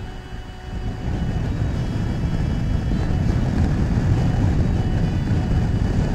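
Motorcycle riding through a road tunnel past slow lorry traffic, with engine, wind and traffic noise mixing into a low rumble. The rumble grows louder about a second in and then holds steady.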